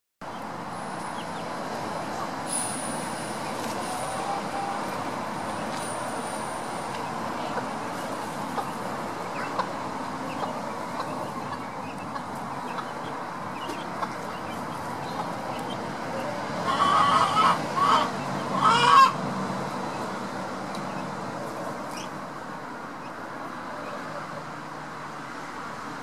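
Chickens calling, with a burst of several short, loud calls about two thirds of the way through, over steady background noise.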